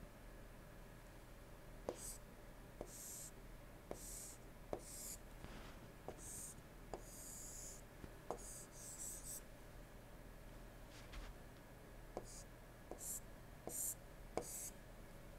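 Stylus drawing on a tablet screen: faint taps as the pen tip meets the surface, each followed by a short scratchy stroke, about a dozen in all, with a pause of a couple of seconds past the middle. A steady low hum runs underneath.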